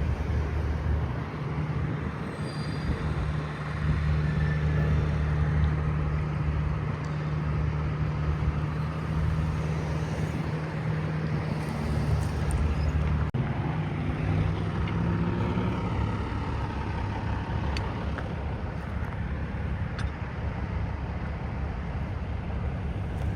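A heavy engine idling with a steady low hum; its pitch shifts about halfway through, over a continuous low rumble of traffic and outdoor noise.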